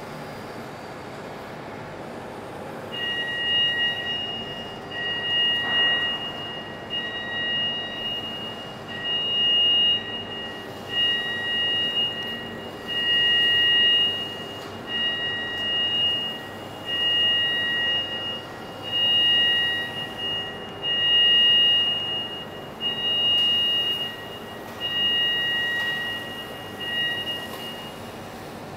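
Electronic warning beeper in a telescope enclosure, sounding a steady two-tone beep about once every two seconds from a few seconds in until near the end, a motion warning for the moving telescope machinery. Under it runs a steady mechanical hum from the enclosure.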